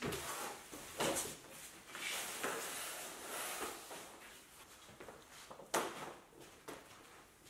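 A wooden board slid along the floor and pressed against the base of a plastered wall, giving dry scraping and rubbing with a couple of knocks, the sharpest near the end.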